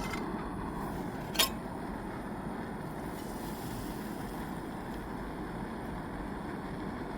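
Gas camping stove burner running steadily under a wind guard, with a single sharp clink about a second and a half in.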